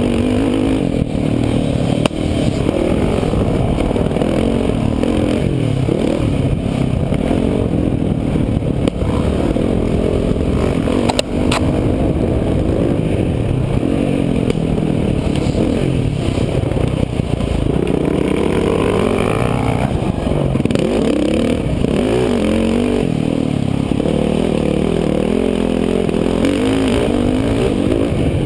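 Dirt bike engine heard from onboard while riding a motocross track, its pitch rising and falling as the throttle opens and closes over the ruts and bumps. A sharp knock about eleven seconds in.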